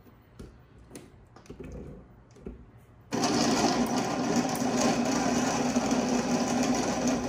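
A few light knocks, then about three seconds in a countertop blender switches on suddenly and runs steadily, grinding a full jar of mango with evaporated and condensed milk.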